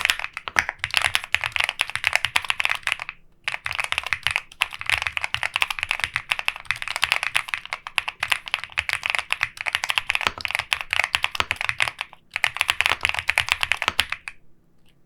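Fast typing on an Epomaker P75 mechanical keyboard: a dense run of key clacks, with brief pauses about three seconds and twelve seconds in, stopping just before the end.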